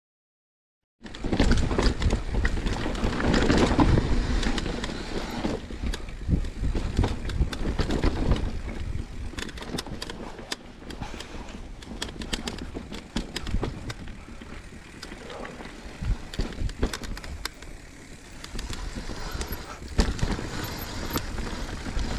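Commencal Meta Trail 29 mountain bike riding down a very rocky trail: tyres rolling over rock and the bike rattling, with many sharp knocks. It starts about a second in and is heaviest over the first few seconds, easing off in the middle.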